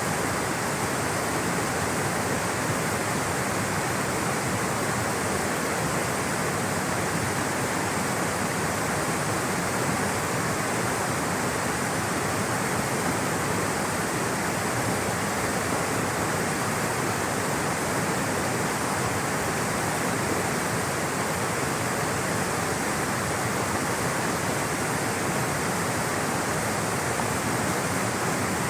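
Water rushing and flowing in a steady, unbroken wash, like a stream or small waterfall.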